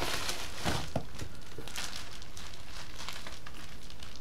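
Packaging being handled: plastic and bubble-wrap bags crinkling and cardboard rustling, loudest in the first second, then softer, irregular rustling.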